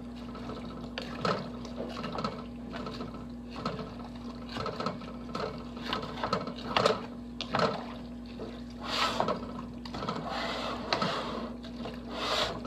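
Wooden spoon stirring a pot of ground-turkey goulash in tomato juice: irregular knocks and scrapes of the spoon against the pot with wet sloshing of the thick liquid. A steady low hum runs underneath.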